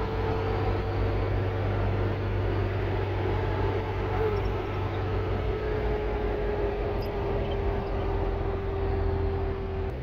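Vehicle driving on a dirt road, heard from inside the cab: a steady low engine and road drone with a whining tone that sinks slowly in pitch.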